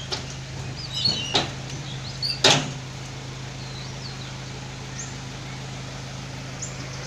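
Three sharp knocks over a steady low hum, the third about two and a half seconds in the loudest, with short high chirps of birds now and then.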